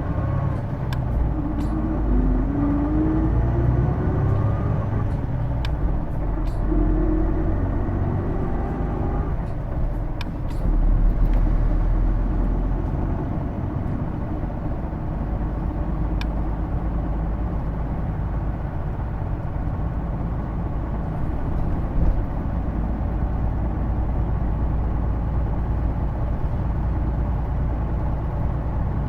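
Hino Blue Ribbon II city bus heard from inside the cabin, pulling away: a whine rises in pitch and steps back several times over the first nine seconds, then the bus runs on at a steady drone. The whine is the distinctive drivetrain sound, like an automatic gearbox, that the recorder takes for the transmission.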